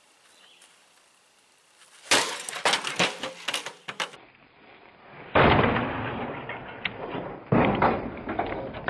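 A wooden club hitting a rusty metal bucket: a quick run of rattling clanks about two seconds in, then two heavy whacks about five and a half and seven and a half seconds in, each followed by a lingering metallic rattle.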